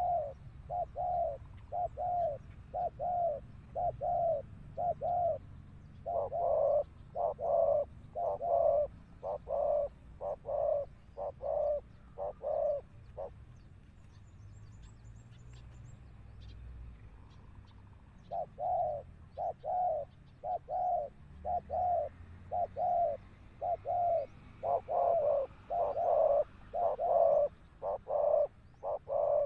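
Spotted doves cooing: runs of short, low coos, several a second, with a pause of about five seconds midway before the cooing starts again.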